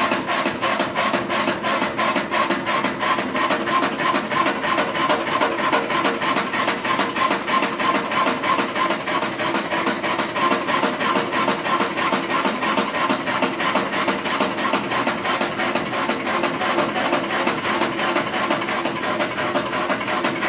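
Electric motor turning the drum of a homemade drum coffee roaster: a steady hum with a fast, even rhythmic clatter as the drum revolves.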